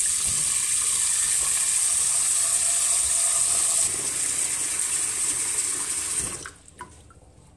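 Cold tap water running from a kitchen faucet into a stainless steel pot of freshly boiled eggs in a steel sink, a steady rush, to cool the hot eggs quickly. The tap is shut off about six seconds in.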